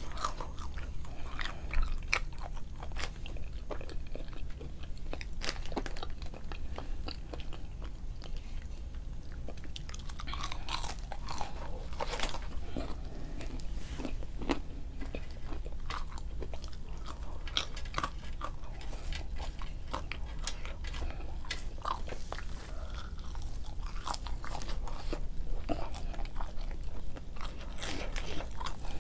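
A person chewing and biting fast food close to the microphone, with crunching and wet mouth clicks; one sharp click stands out about eighteen seconds in. A steady low hum sits underneath.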